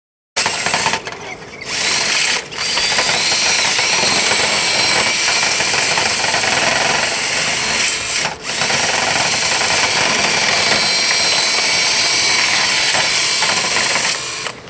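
Electric power drill running, spinning a rotary dryer-vent cleaning brush, with a steady high whine. It starts about half a second in, stops briefly about two and a half seconds in and again around eight seconds, and cuts off near the end.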